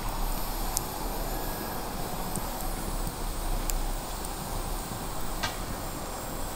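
Steady rushing background noise with a few sharp crackles from the wood and charcoal fire smouldering in the brick grill.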